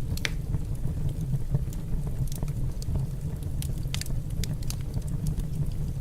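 Wood fire burning in a fireplace, crackling with scattered sharp pops over a steady low rumble.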